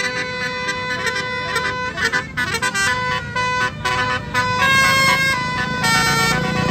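Tour bus 'telolet' musical air horn (Basuri type) playing a tune: several tones sounding together and stepping to new pitches about twice a second, over the low rumble of the bus.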